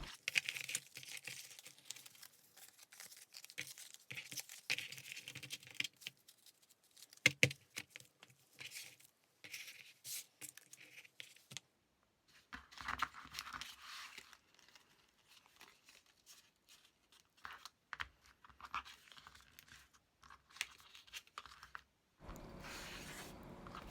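Paper and craft materials rustling and crinkling as they are handled, with scattered light clicks and taps; the sound comes and goes, with short quiet gaps.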